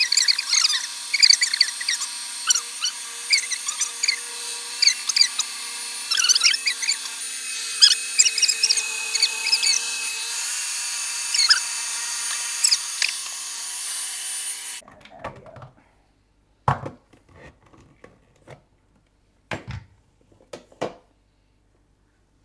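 Ninja Creami Breeze ice-cream maker running, its spinning blade shaving through a frozen pint of blended blueberries with a steady hum and a crackling scrape. It stops abruptly about 15 seconds in, followed by a few clicks and knocks as the bowl is unlocked and lifted out.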